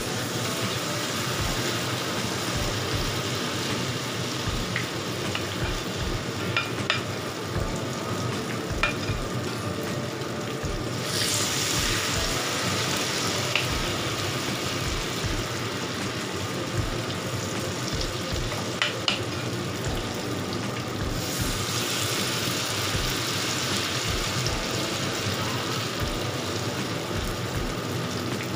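Hot oil sizzling in a wok as vegetable fritter batter deep-fries. The sizzle grows louder twice, about eleven seconds in and again from about twenty-one seconds. A few light clicks of a wooden spatula against the pan are heard along the way.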